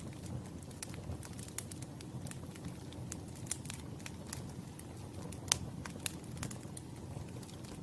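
Campfire burning with a steady low rumble and irregular sharp crackles and pops of burning wood, the loudest pop about five and a half seconds in.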